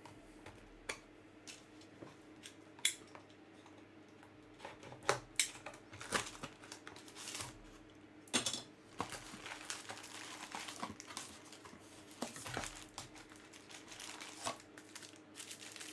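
Crinkling and rustling of plastic wrapping, with scattered light clicks and taps, as a trading-card box is handled and unwrapped by hand.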